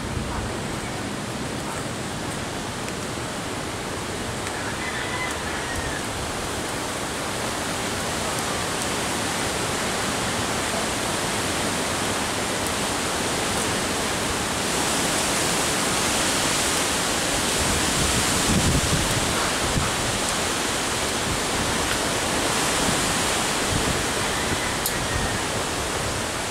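A steady, even hiss, a little louder in the middle stretch, with no clear single event standing out.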